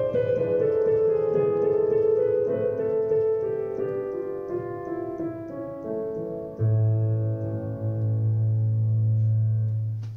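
Digital piano played in a slow, gentle piece, a melody over held chords. About six and a half seconds in, a low bass note and closing chord come in and are held, dying away at the very end.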